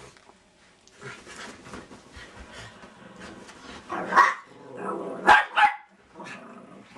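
Small dogs play-fighting: a few quiet seconds of snuffling and scuffling, then sharp barks about four seconds in and two more just after five seconds.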